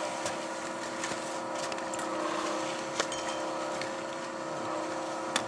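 Surface drag lift machinery running, a steady mechanical hum with several held tones. Two short sharp clicks sound about three seconds in and near the end.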